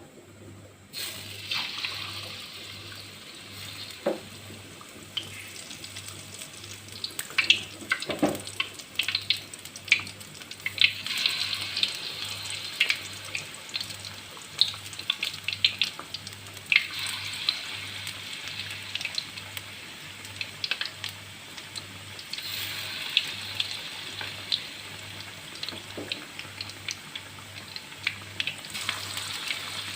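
Tap water running into a kitchen sink, rising and falling in strength, with frequent small knocks and clicks of things being handled in it.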